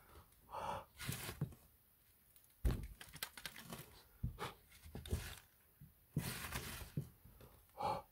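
Dry soil rubbed and pressed by hand onto the plastic tyres of a 1/32 scale model tractor: faint gritty scrapes and crunches in short separate bursts, with a breath-like puff about half a second in and another near the end.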